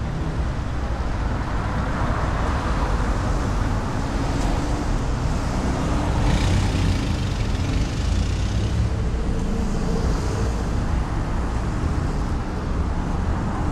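Road traffic on a city street: cars passing with a steady engine and tyre noise that swells briefly about halfway through.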